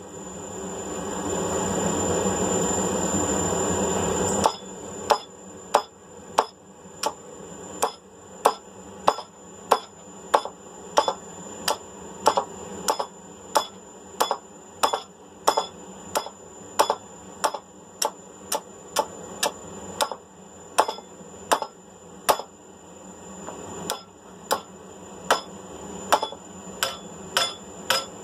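Blacksmith's hammer striking hot mild steel flat bar on an anvil in a steady rhythm, about one and a half ringing blows a second, working the holes through the bar. For the first few seconds a steady rushing noise plays, then cuts off suddenly before the hammering starts.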